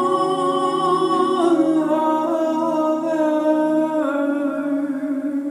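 A man's voice holding long hummed notes over guitar as a live song draws to its close, the pitch moving to new notes about a second and a half in and again near the end.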